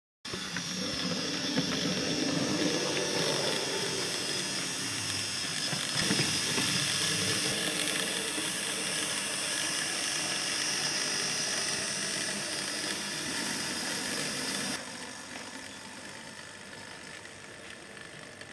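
Hornby OO-gauge J94 saddle tank model locomotive running on track: a steady whirring and grinding from its motor and gears, with the wheels rattling over the rails. The sound drops suddenly to a lower level about fifteen seconds in.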